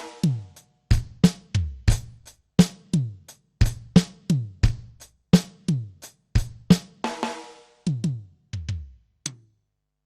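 Electronic drum sound module (dbdrums db10 V3) played in a sound test: a steady run of separate kick and tom hits, the toms' pitch dropping after each strike, with a cymbal-like splash about seven seconds in and dead silence between hits.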